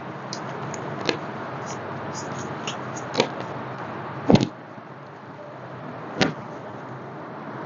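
Joints cracking during a chiropractic adjustment: about four sharp pops a second or two apart, the loudest a double crack about four seconds in, over a steady background hiss.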